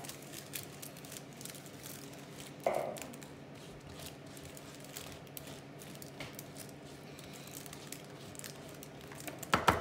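Rice puff mixture being pressed down into a baking-paper-lined tray with a wooden spoon, giving faint crackling and crinkling from the puffs and paper. A brief louder knock comes about two and a half seconds in, and a few sharp clicks near the end.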